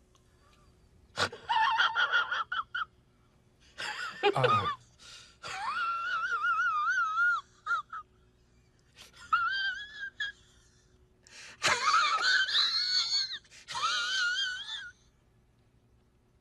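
High-pitched wailing cries in about six bursts, the pitch wavering and breaking off between bursts, like exaggerated sobbing.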